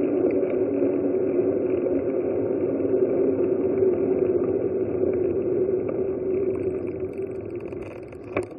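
Muffled wind rush and rolling noise on an action camera's microphone as a bicycle descends a paved road. It fades near the end, with a couple of sharp clicks.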